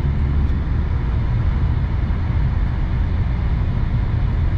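Road and engine noise inside a moving car's cabin: a steady low rumble with an even hiss above it.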